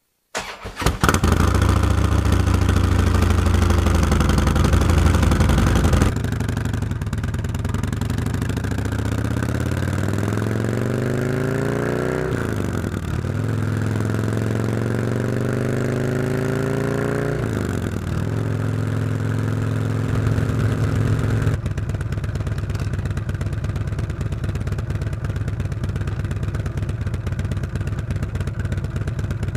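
2012 Harley-Davidson Road King's Twin Cam 103 V-twin, heard close to the exhaust through stock mufflers on stainless 2-1-2 head pipes. It starts at once and runs loud for about six seconds. Then the pitch climbs twice, each climb ending in a sharp drop as it shifts up a gear, before it settles into a steadier, lower run for the last several seconds.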